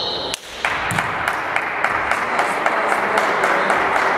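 Spectators clapping and applauding in a sports hall, starting about half a second in, just after a steady high tone cuts off.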